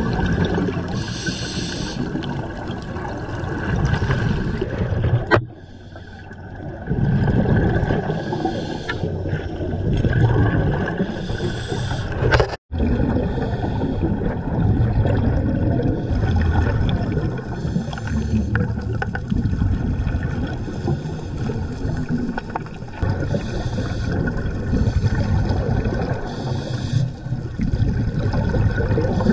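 Scuba divers breathing through regulators underwater: short hisses of inhaling through the demand valve recur every few seconds between the low, gurgling rumble of exhaled bubbles. The sound breaks off briefly twice at edits.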